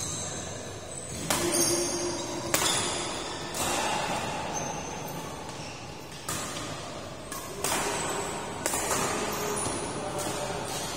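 Badminton rackets striking a shuttlecock in a doubles rally: sharp hits about one a second, with a lull in the middle, each ringing briefly in a large hall. Short high squeaks from shoes on the court floor come in between the hits.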